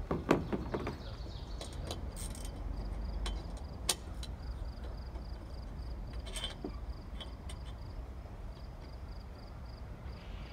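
Scattered clicks and knocks of hands working on a canoe's homemade side stabilizer: a cluster right at the start, a sharp click about four seconds in and more knocking later. A faint high chirping pulses several times a second underneath.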